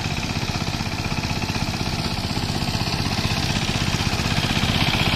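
Two-wheel power tiller's single-cylinder diesel engine chugging with a fast, even beat as the tiller is driven along, getting louder as it comes closer.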